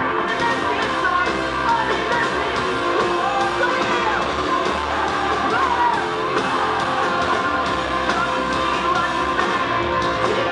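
Live rock band playing loud: electric guitars and drums under a lead vocal singing into the microphone, in one unbroken wall of sound.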